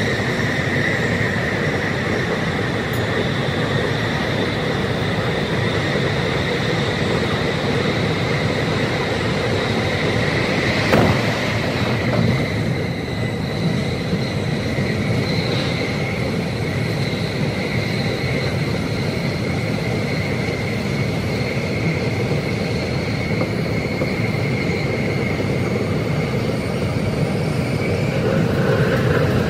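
Tsukuba Express train running at speed, heard from just behind the driver's cab and played back at double speed: steady running noise with a steady high whine over it. A single sharp knock comes about eleven seconds in.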